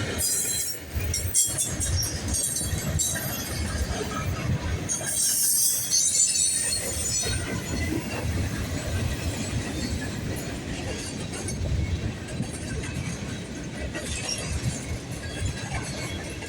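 Freight train cars rolling past: a steady rumble of steel wheels on rail with scattered clicks and knocks, and brief high-pitched wheel squeals about half a second in and again around five to six seconds in.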